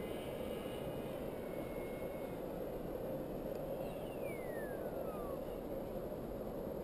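Steady rushing wind noise on the microphone. About three and a half seconds in, a thin whine falls steadily in pitch for nearly two seconds.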